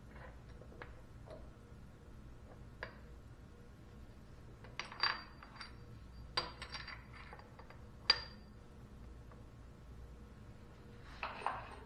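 Steel step blocks and strap clamps being handled and set down on a metal machine table: scattered light metal clinks and knocks, with three sharper ringing clinks in the middle.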